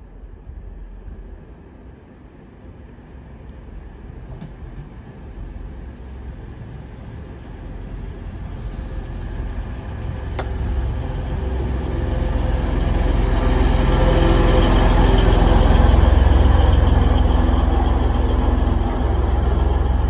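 A TransPennine Express Class 185 diesel multiple unit pulling into the platform. The rumble of its engines and wheels grows steadily louder over about fifteen seconds as it approaches, then eases slightly as it draws to a stand alongside.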